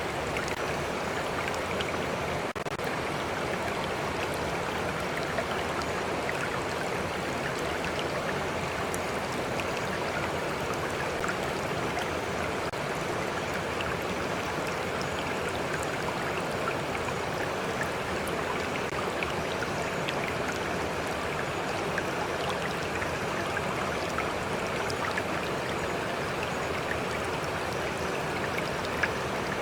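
A stream flowing with a steady rush of water. Small splashes and drips of water lapping close by are scattered through it.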